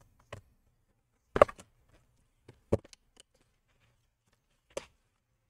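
A few short, sharp plastic clicks and taps, the loudest about a second and a half in, as a laptop's plastic bottom cover is pressed onto the chassis and its edge clips snap into place.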